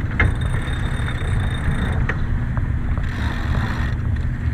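Steady wind buffeting the microphone and water rushing along the hull of a sailboat under way, with a couple of sharp clicks, one just after the start and one about two seconds in.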